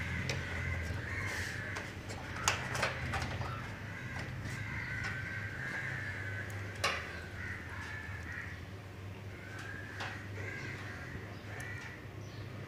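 Crows cawing repeatedly, with a few sharp clicks from PC power-supply cables and connectors being handled against the metal case, over a steady low hum.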